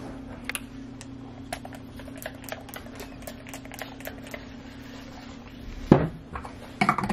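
Light, irregular clicks and taps from a handheld camera being handled and moved, over a steady low hum, with a louder bump about six seconds in.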